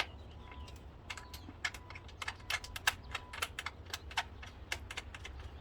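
Irregular light clicks and taps as the throttle body's four mounting screws are handled and started into their holes, over a steady low hum.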